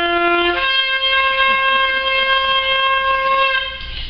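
A long horn blast in two held notes: a low note steps up to a higher one about half a second in, and the higher note holds for about three seconds, then stops.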